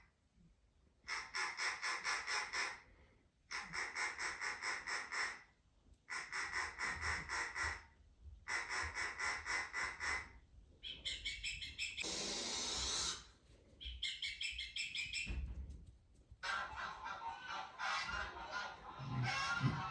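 Bird-like chirping trills in regular bursts of about two seconds with short gaps, then a brief hiss and a jumbled run of chirps near the end.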